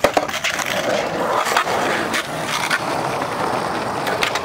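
Skateboard wheels rolling over concrete, a steady gritty rumble, broken by several sharp clacks of the board hitting the ground.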